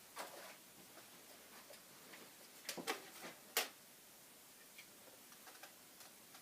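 A few faint, short clicks and taps from small objects being handled: one just after the start, then four close together about three to four seconds in.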